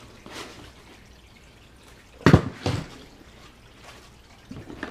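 A cut hard-foam insert being pulled out of a hard plastic case: light scuffing, then two sharp knocks about half a second apart a little over two seconds in, and a few small knocks near the end.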